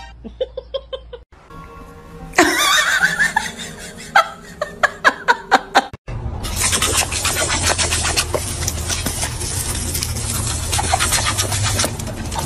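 A run of short, repeated pitched sounds, then about six seconds in a garden hose spray nozzle starts spraying water with a steady hiss.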